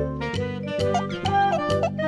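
Upbeat children's background music with a steady beat.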